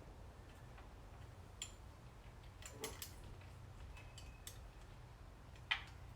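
Faint, scattered metallic clicks and ticks of hand tools and small hardware as a nylock nut is fastened on a kickdown cable bracket, with the sharpest click near the end.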